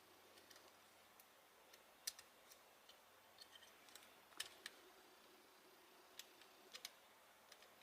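Faint, scattered clicks and light metallic ticks, a handful of them, from small parts of an angle grinder's brush holder being handled and worked with a small hook.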